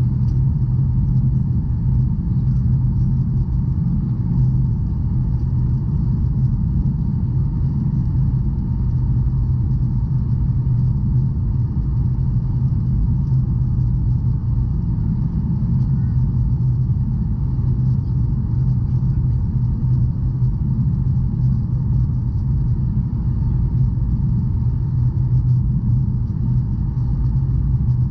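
Steady low rumble of engine and airflow noise heard inside the cabin of a Boeing 737 airliner in flight.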